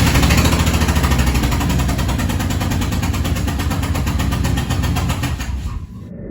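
Ford F-250's 5.4-litre V8 running with a loud, rapid chuffing from a cylinder whose spark plug has blown out of the head, letting combustion gases blast out of the open plug hole. The engine shuts off near the end.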